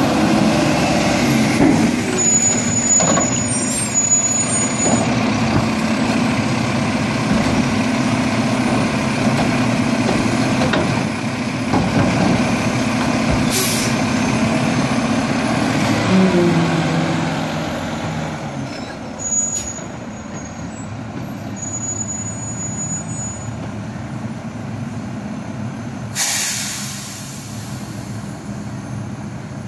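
Mack LEU garbage truck's diesel engine running steadily at a raised speed, then dropping in pitch and settling a little past halfway. A short air-brake hiss comes about 13 seconds in, and a longer, louder air-brake release comes near the end.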